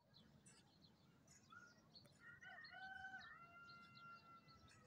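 A rooster crowing faintly once, its call ending in a long drawn-out note that sinks a little before stopping. Small birds chirp faintly around it.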